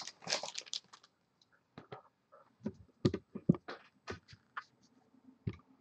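Magic: The Gathering trading cards being handled and flipped through, making soft irregular clicks and snaps. A short run of rustling from the foil booster wrapper comes in the first second.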